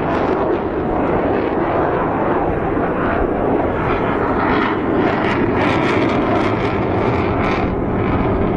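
A JF-17 Thunder's single RD-93 turbofan jet engine at high power, a loud steady roar with some crackling in the second half.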